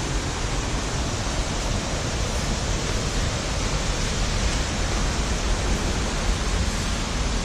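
Waterfall rushing, a steady, even wash of falling water with no breaks.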